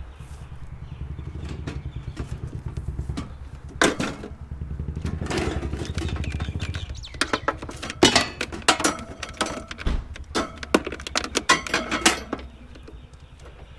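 A vehicle engine idling steadily. From about four seconds in until near the end, scrap metal items clank and rattle as they are handled and loaded.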